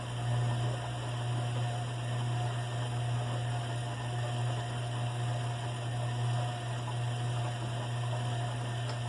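Bosch washing machine's drum motor running with a steady low hum as it turns the drum during a full-load wash.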